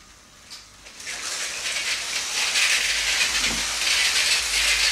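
Motorized Lego City cargo train running on its plastic track: the wheels and motor start up about a second in and keep going with a steady, fluttering hiss.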